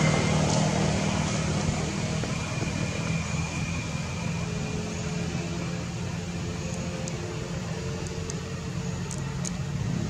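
Steady low hum of motor traffic, easing off over the first couple of seconds, with a few faint high ticks later on.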